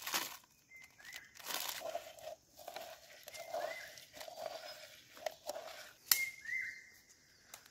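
Hands crinkling and rustling leaves and a plastic packet in a bowl of water, in short bursts of rustling.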